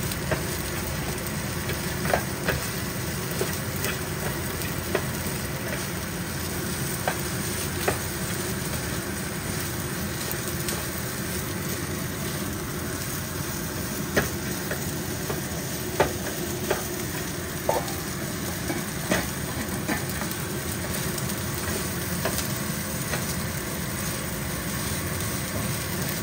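Fried rice sizzling in a nonstick skillet, stirred and tossed with a spatula: a steady frying hiss with short, sharp clicks every second or two where the spatula knocks and scrapes against the pan.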